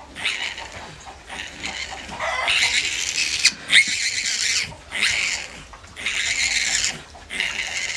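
A piglet squealing in a string of long, high-pitched cries with short breaks between them, in distress at being held.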